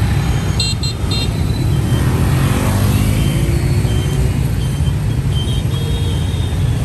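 Dense street traffic of motorbikes and cars: a steady engine rumble with short horn beeps scattered through it, and one engine revving up in rising pitch as a vehicle pulls through, about two to four seconds in.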